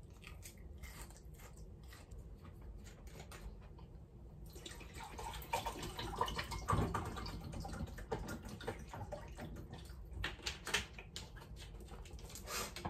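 Chewing a bite of crispy karaage (Japanese fried chicken): a run of small crunching clicks, then louder, busier irregular noise from about four seconds in.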